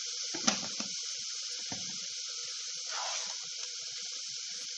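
Ridge gourd and potato pieces sizzling in oil under the lid of a covered kadai: a steady hiss. One sharp click comes about half a second in.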